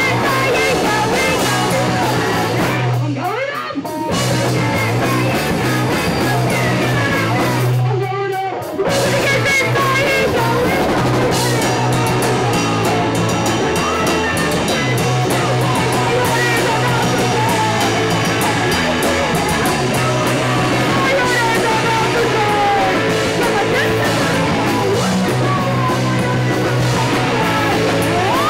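Rock band playing with electric guitar, drum kit and singing. The music drops out briefly twice, about three and eight seconds in, then comes back in.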